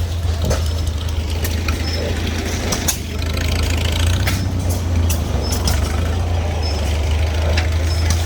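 Old hit-and-miss stationary engines running: a steady low drone with irregular sharp clicks and pops.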